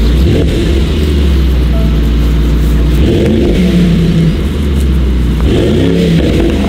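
Mercedes-AMG GT 63's twin-turbo V8 running with a steady deep rumble, revved up about three seconds in and again near the end.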